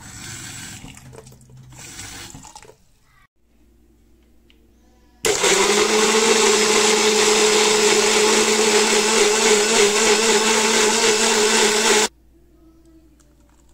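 Electric blender grinding a wet paste of cumin seeds with onion or garlic pieces: a loud, steady motor whine that starts about five seconds in and cuts off abruptly about seven seconds later. A softer rushing noise comes before it, in the first few seconds.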